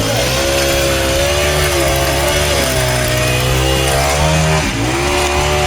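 Battery toy power tool playing its electronic motor sound, a steady buzzing engine noise that revs down and up a few times.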